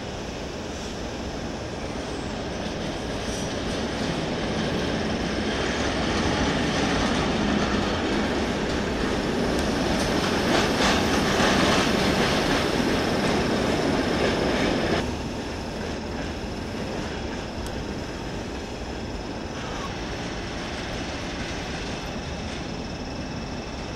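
Passenger train coaches rolling past through the station, the wheels clicking over the track. The sound builds over several seconds, is loudest just past the middle, and drops off suddenly about two-thirds of the way in, leaving a steadier, lower rumble of rail traffic.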